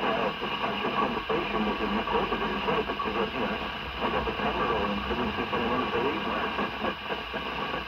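A person's voice received over a CB radio on FM, heard through the rig's speaker over a steady background hiss.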